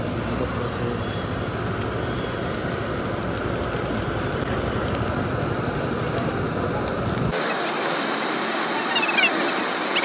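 Busy street ambience: a steady rumble of road traffic with indistinct background voices. About seven seconds in the rumble cuts off abruptly, and short high squeaky chirps follow near the end.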